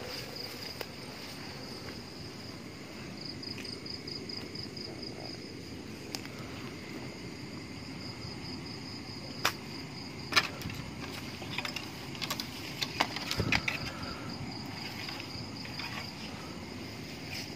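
Night crickets and insects trilling in a steady, pulsing chorus, over footsteps rustling through grass and brush. Past the middle, several sharp cracks and clicks stand out as the loudest sounds.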